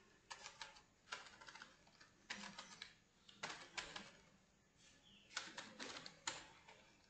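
Faint typing on a computer keyboard: about five short bursts of quick keystrokes with brief pauses between them.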